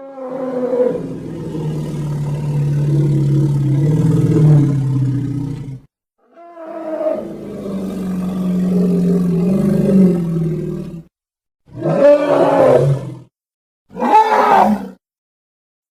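Sound-effect roars of a reconstructed Ice Age mammal: two long, low, steady roars, each ending in a brief rise in pitch, then two short roars.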